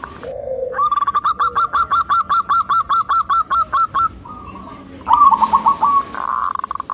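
Zebra dove (perkutut) cooing: a long, even run of rapid staccato notes, about five or six a second, then a shorter burst of notes and a rolling trill near the end.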